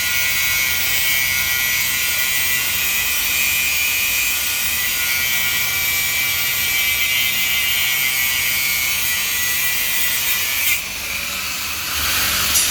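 Construction machinery running steadily with a loud high hiss and whine, changing abruptly about eleven seconds in.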